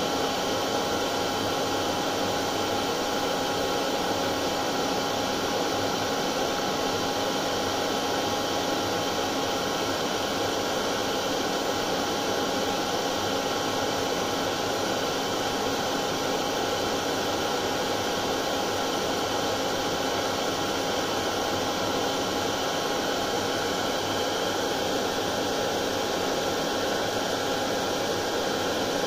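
Hair dryer running steadily: an unbroken rush of blown air with a constant motor tone.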